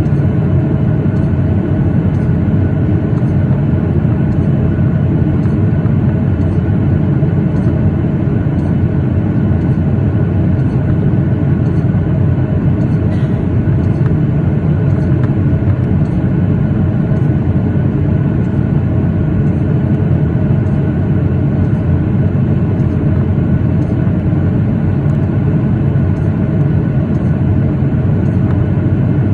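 Steady cabin noise of a Boeing 737-8 in flight: the CFM LEAP-1B engines and the airflow drone on evenly, heard from inside the passenger cabin.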